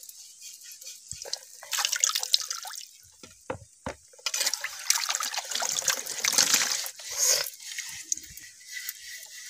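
Water splashing and sloshing in a tub as terracotta clay plates are rinsed and rubbed by hand, in two spells, with water running off a lifted plate. A few light knocks come between the two spells.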